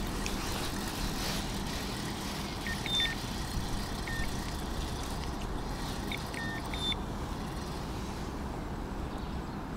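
Steady wind noise on the microphone, a low rumble and hiss, with a few faint short high chirps about three, four and seven seconds in.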